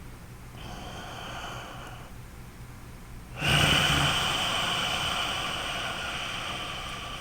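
A man breathing loudly through his nose as a tai chi relaxation exercise: a softer breath about half a second in, a pause of a second or so, then a louder, longer breath starting about three and a half seconds in that slowly fades.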